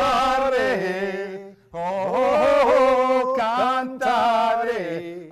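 A man singing unaccompanied in a full, operatic style: three long phrases of held notes, with short breaks about one and a half and three and a half seconds in.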